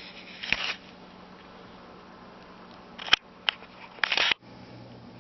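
Handling noise of a phone camera: a few sharp clicks and short rustling scrapes as it is moved, over a steady low hum.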